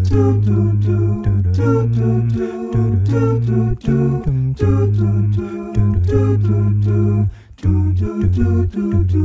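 A cappella nasheed: voices singing a melody without instruments over a deep held vocal bass, in notes that change about every half second.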